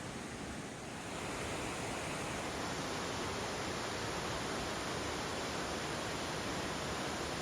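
Steady rushing of flowing water, growing louder and brighter about a second in.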